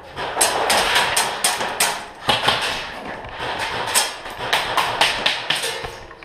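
Airsoft gunfire: irregular sharp cracks and knocks, a few a second, with BBs striking plywood walls.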